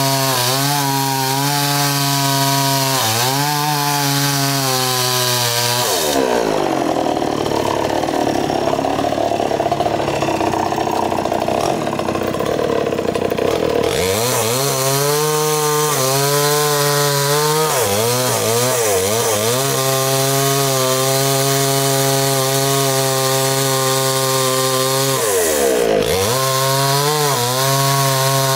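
Gasoline chainsaw running at high revs as it cuts into a coconut palm trunk, its engine note dipping and recovering again and again as the chain bites into the wood. Midway, for about eight seconds, the clear engine note gives way to a rougher, duller noise.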